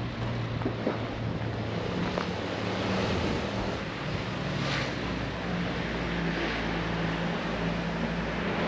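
A motor vehicle's engine running steadily close by, with wind noise on the microphone.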